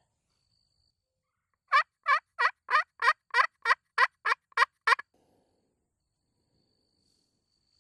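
Crystal pot call (slate-style friction turkey call) run by hand in a series of about eleven loud hen-turkey yelps, roughly three a second, stopping about five seconds in.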